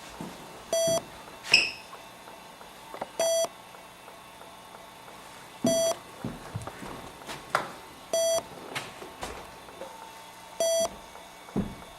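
A short electronic beep repeating evenly about every two and a half seconds, five times, with scattered clicks and knocks between the beeps.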